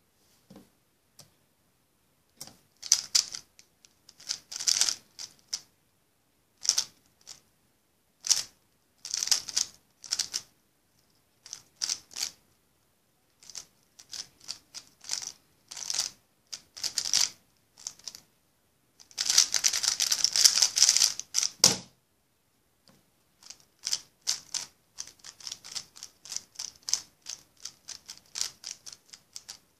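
A 3x3 speedcube being turned by hand: bursts of quick plastic clacks as the layers turn, separated by short pauses while the solver looks ahead, with one long fast run about two-thirds of the way through.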